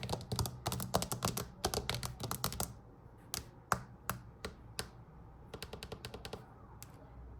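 Quick runs of small clicks and taps from smartphones being handled and operated: a dense flurry for the first few seconds, then single taps about every half second, then another short flurry.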